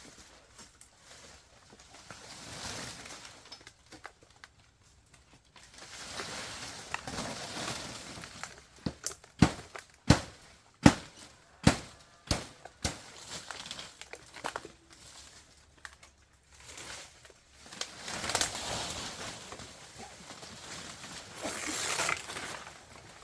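Rustling and scraping, with a run of seven or eight sharp knocks in the middle, about two a second.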